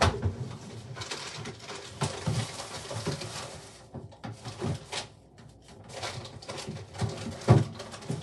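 Rustling and clatter of packaging and food being handled at an open refrigerator, with irregular low thuds.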